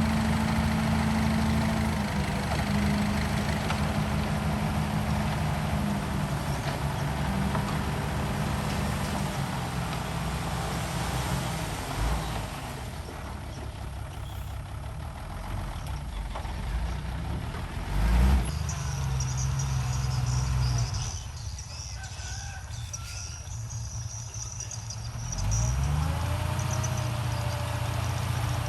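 Heavy diesel engines of earthmoving machinery (bulldozer and dump trucks) running and working, with the engine note changing several times and revving up near the end.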